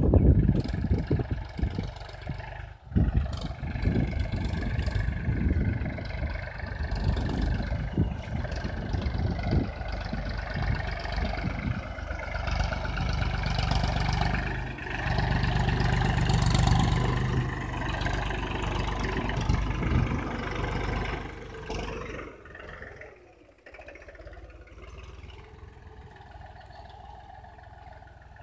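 Mahindra B-275 DI tractor's three-cylinder diesel engine running steadily under load as it works the ploughed field. It drops to a much quieter level about three-quarters of the way through.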